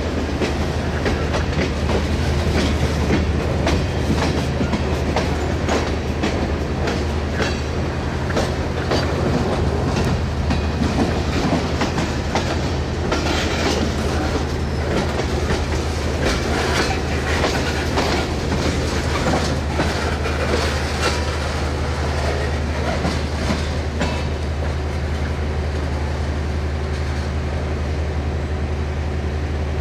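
Freight train of ballast conveyor cars rolling past, its wheels clacking over rail joints in an irregular run of clicks and knocks over a steady low drone.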